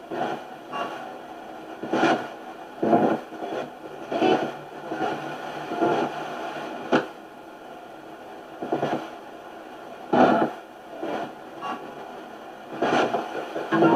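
Spirit box (ghost box) sweeping through radio stations: choppy, irregular bursts of broadcast fragments, about one every second or two, over steady static.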